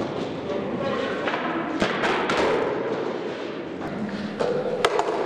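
Skateboard wheels rolling on a concrete floor in a large, echoing room, with sharp board clacks and thuds as tricks are popped and landed: one about two seconds in and two close together near the end.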